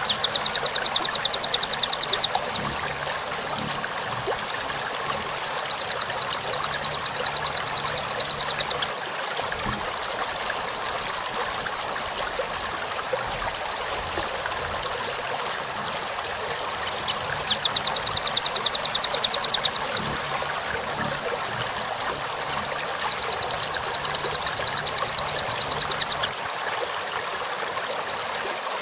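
Velvet-fronted nuthatch (rambatan) singing fast, rattling trills of high notes in bouts several seconds long, with short pauses and scattered shorter bursts between them, over a steady background hiss. It is a tutor recording played for training cage birds.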